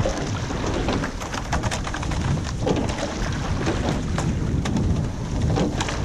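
Wind buffeting the microphone in a heavy low rumble, over water rushing and splashing past a moving rowing shell, with scattered sharp clicks and knocks from the sculling oars in their oarlocks.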